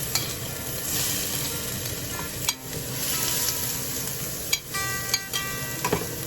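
Onions and mushrooms sizzling as they sauté in a pan, stirred with a utensil that knocks against the pan a few times.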